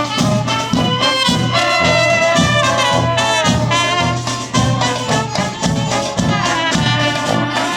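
Klezmer street band playing live: horns carry the tune over a steady bass and beat.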